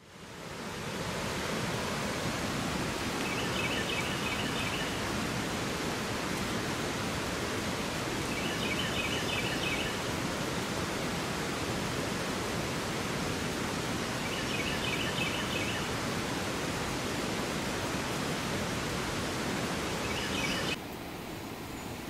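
Waterfall rushing steadily, with a short, high, rapid chirping call repeated about every six seconds. The rush drops in level near the end.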